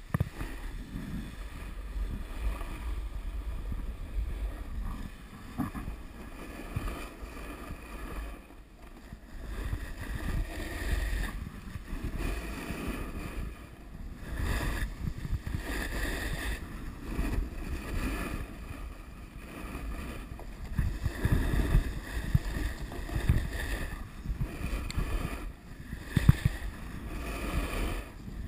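Snowboard sliding and carving down a groomed piste, its edges and base scraping over firm snow, with wind rumbling on the camera microphone; the rush swells and eases with the turns.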